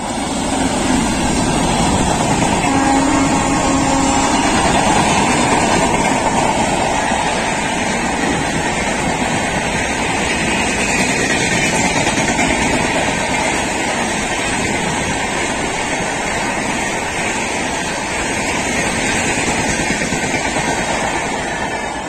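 Express passenger train hauled by a WAP-7 electric locomotive running past at speed: a loud, steady rush and rumble of coaches and wheels on the rails.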